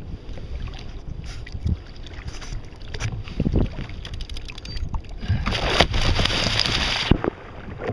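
Wind rumbling on the microphone with a few small knocks. About five seconds in, a loud splash of water lasts nearly two seconds and stops sharply, as a hooked blacktip shark thrashes at the surface beside the kayak and throws spray over the camera.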